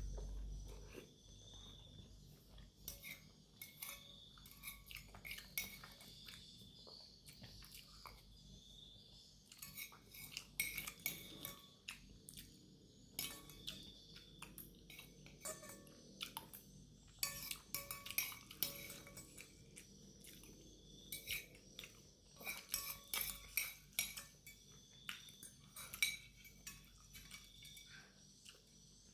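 Cutlery clinking and scraping against a bowl in short, irregular clusters of sharp clinks, as the last of a bowl of chicken noodles and meatballs is scooped up.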